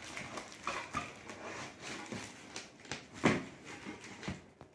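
Cardboard packaging rustling and scraping as butane gas canisters are handled and taken out of the box, with short irregular knocks and one louder short sound a little over three seconds in.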